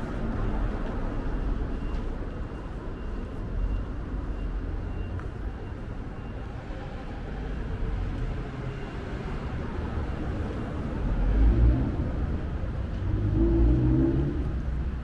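City street traffic: cars and other road vehicles driving past, a steady low rumble of engines and tyres. Two vehicles pass close near the end, each swelling louder briefly.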